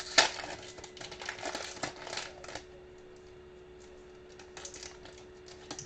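Trading cards and their plastic and paper wrapping being handled: a run of crinkling, rustling and light tapping for about two and a half seconds, sharpest just after the start, then only a few faint clicks over a low steady hum.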